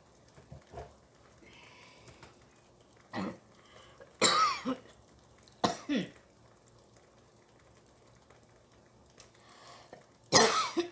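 A woman coughing and clearing her throat in several short fits, the loudest about four seconds in and near the end.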